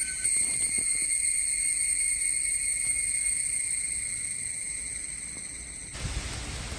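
Insects shrilling steadily in forest, a chorus of high, unbroken tones. About six seconds in this gives way to a loud, low rushing rumble on the microphone.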